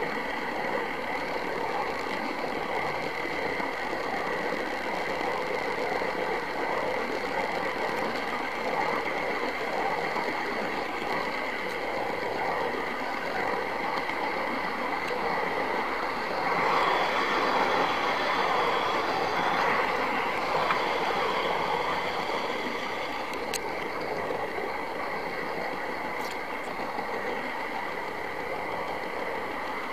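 OO gauge model train running along its track, heard from a camera riding on board: a steady whir from the running train, louder for a few seconds around the middle, with two sharp clicks near the end.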